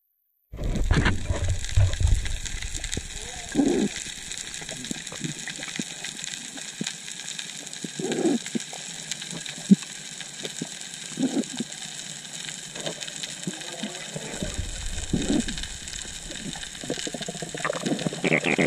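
Underwater ambience picked up by a camera under the sea: a steady hiss with a muffled water swell every three to four seconds.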